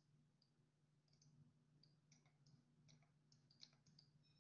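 Near silence: faint, irregular little clicks of a stylus writing on a tablet screen, over a faint steady low hum.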